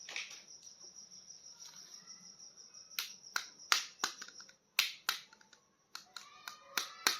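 Sharp plastic clicks and taps of toy action figures being handled, about a dozen of them from about three seconds in. A steady high-pitched chirring runs in the background.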